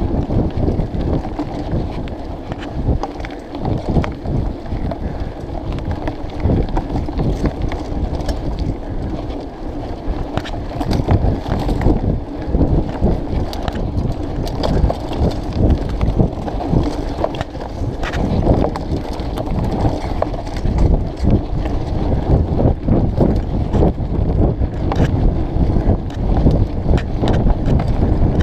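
Mountain bike ridden along a rough forest singletrack: wind buffeting the camera microphone over a constant rumble of tyres on the ground, with frequent sharp knocks and rattles from the bike over bumps.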